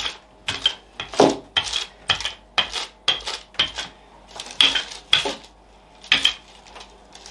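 Wooden rolling pin clacking and knocking as it is pushed back and forth over dough on a table, about two sharp clacks a second.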